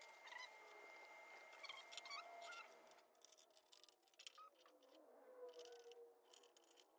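Near silence, with faint scattered clicks and light handling noise in the second half.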